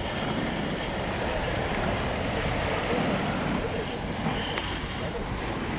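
Sea surf washing and breaking against the boulders of a rock breakwater, with wind on the microphone.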